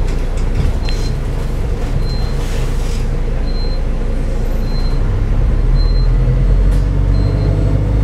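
Interior running sound of a New Routemaster diesel-electric hybrid bus on the move, a steady low hum whose deeper engine rumble swells louder about halfway through. A short high beep repeats about once a second, with a few rattling clicks.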